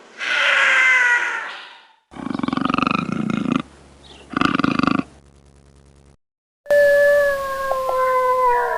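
Creature sound effects of a chupacabra: a wavering screech, then two rough, rattling roars (the second shorter), then after a short silence a long howl that slides slowly down in pitch.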